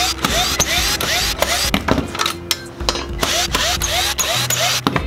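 Cordless drill/driver running in spurts as it backs screws out of a factory car radio's climate-control panel, with a repeating short rising whine about three to four times a second.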